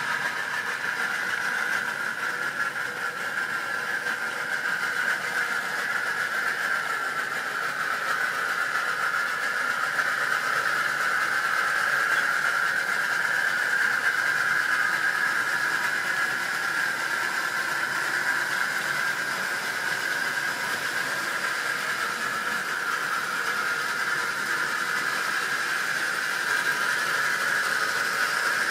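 Model railway goods train running on the layout: a steady whir from the locomotive's electric motor and wheels on the track.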